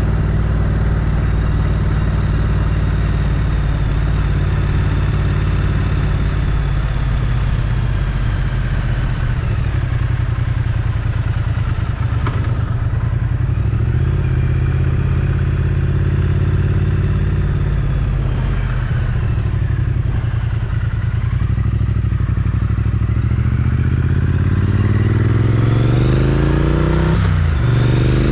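Triumph Street Twin's 900 cc parallel-twin engine running through its stock exhaust while riding, its pitch shifting a few times. Near the end the revs climb, dip briefly and climb again.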